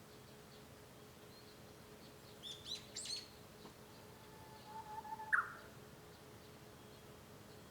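Japanese bush warbler (uguisu) singing: a long, low whistled note that breaks into a sharp rising phrase about five seconds in. A quick cluster of high chirps comes a couple of seconds earlier.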